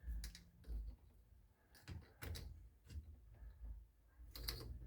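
Scattered small clicks and knocks of hands working inside a car door, handling and fitting plastic wiring connectors onto a new door lock actuator.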